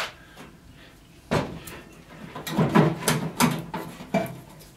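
A single knock about a second in, then a cluster of clunks and rattles: a cordless drill set down on the workbench and a microwave's sheet-metal cabinet being handled during teardown.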